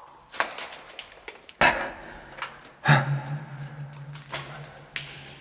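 Footsteps and scuffs on a debris-littered concrete floor, with several sharp clattering knocks, the loudest about one and a half and three seconds in. A low steady hum comes in about three seconds in.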